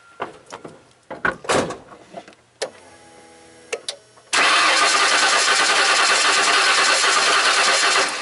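A few clicks and knocks, then from about four seconds in the Ford 5.8 L Windsor V8 is cranked over on its starter for about four seconds without starting, steady and loud. This is a compression test on cylinder 5, which reads about 125 against 170 on a good cylinder, confirming low compression on that cylinder.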